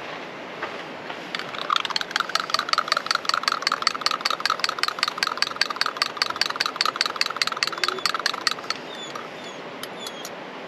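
A metal utensil stirring espresso in a small glass, clinking against the glass about six times a second for some seven seconds, then stopping; a few lighter taps follow near the end.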